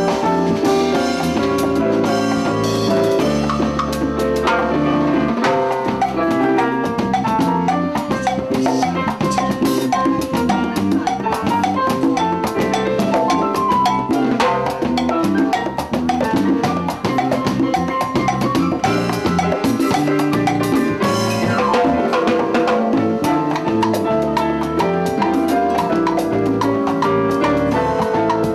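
Live salsa band playing an instrumental passage, with electric bass and a drum kit with cymbals driving a steady, dense rhythm.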